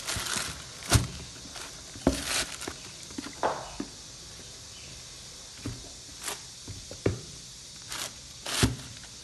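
Sneakers being handled in their cardboard shoe boxes: packing paper and plastic bags rustle in short bursts, with several soft thumps and taps as the shoes are moved. The loudest thumps come about a second, two seconds, seven seconds and eight and a half seconds in.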